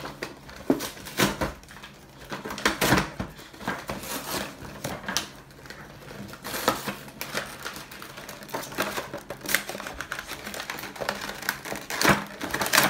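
Cardboard toy box being torn open by hand: irregular ripping, scraping and crinkling of card and paper, with the loudest rip near the end.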